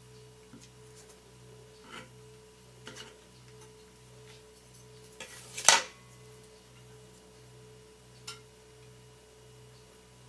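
Soft background music of pure, steady tones with a low note pulsing about twice a second. A few light clicks and taps from kitchen utensils sound over it, the loudest a sharp click about halfway through.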